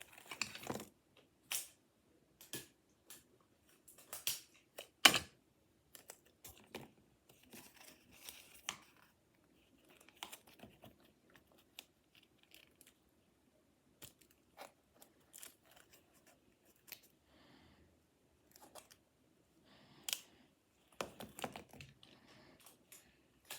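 Paper and cardboard being handled and cut with scissors: scattered snips, rustles and light taps with short pauses between them, the sharpest click about five seconds in.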